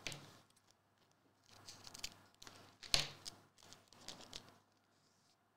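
Faint handling sounds of trading cards and their packaging: scattered soft rustles and light clicks, with one sharper snap about three seconds in.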